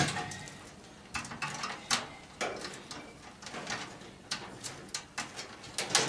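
Scattered knocks and clicks from furnace parts being handled during teardown, with a sharp knock right at the start and smaller ones every half second or so after.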